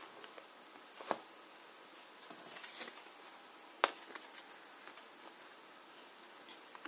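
Handling sounds: a sharp tap about a second in, a brief rustle of paper as a folded instruction leaflet is opened, then a sharper click just before the leaflet is held up.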